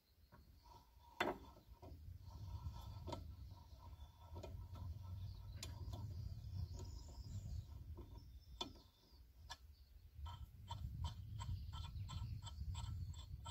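Ratchet wrench clicking as a socket is worked on a painted-over tractor wheel stud to clean its threads. Scattered clicks and knocks at first, with one sharp click about a second in, then from about ten seconds in an even run of about four clicks a second.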